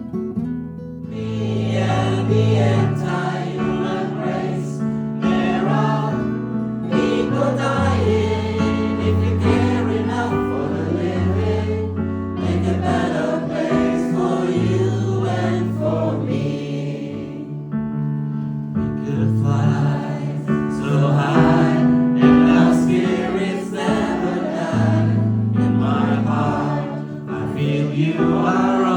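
A group of people singing a Christmas song together to acoustic guitar accompaniment.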